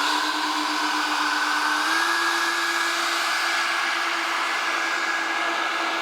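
Electric ducted-fan motors of a large RC model B-52 bomber running steadily on the ground, a whine over a rushing hiss that steps up in pitch twice as the throttle is eased up, about two seconds apart.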